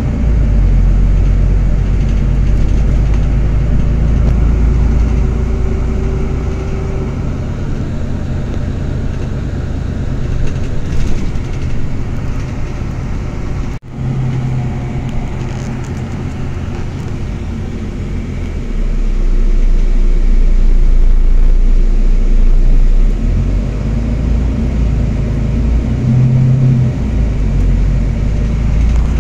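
Engine and road noise inside a moving city bus: a steady low rumble that grows louder about two-thirds of the way through, with a brief gap near the middle.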